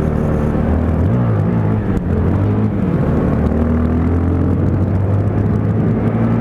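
Motorcycle engine running under way at a steady road speed. Its note shifts about a second in, then holds steady.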